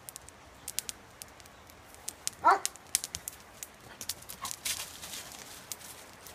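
A dog gives one short, high-pitched bark about two and a half seconds in, over the light crackle and rustle of paws moving through dry fallen leaves.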